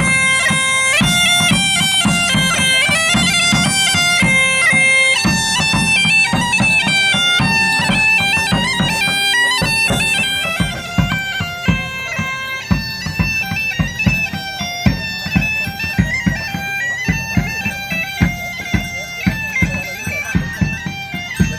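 Bagpipe playing a lively melody over its steady drone, with a drum beating time underneath. About halfway through the music gets a little quieter and duller.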